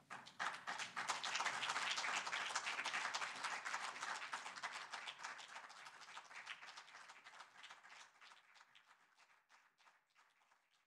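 Audience applauding: it starts suddenly, is loudest for the first few seconds, then dies away gradually to a few scattered claps near the end.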